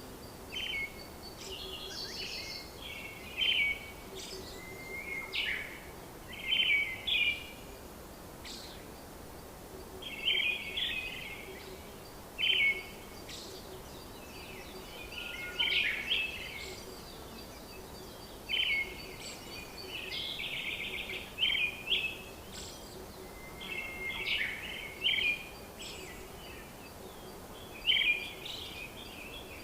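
Small birds chirping and singing in short phrases every second or two, over a steady background hum.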